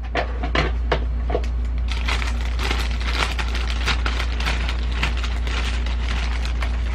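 Plastic courier pouch crinkling as it is handled and cut open with scissors: a few separate crackles at first, then dense, continuous crinkling from about two seconds in.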